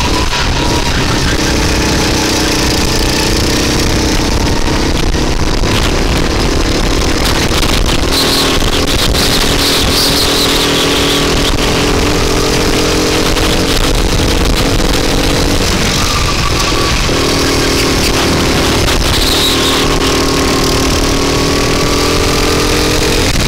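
Rental go-kart's small engine running hard, heard from the driver's seat over a heavy rushing of wind on the microphone. The engine note drops away briefly about 16 seconds in, then picks up again and climbs.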